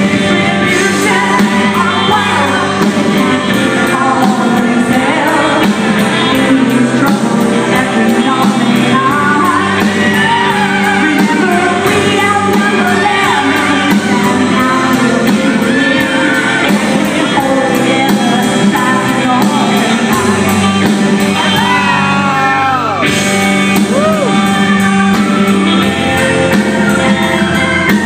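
Punk rock band playing live: electric guitar and drums under a woman's shouted singing.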